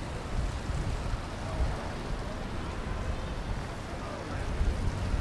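Rainy city street ambience: a steady rushing noise of rain and traffic, with a low rumble underneath.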